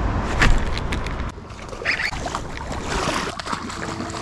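Hooked striped bass thrashing and splashing at the water's surface while being reeled toward the shore, in several short splashes. A low rumble runs under the first second or so.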